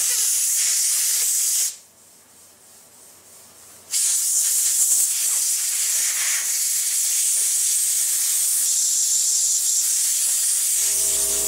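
Compressed-air blow nozzle hissing as cleaned AR-15 bolt carrier parts are blown dry. A first blast cuts off about two seconds in. A second, longer blast starts about four seconds in and tails off near the end.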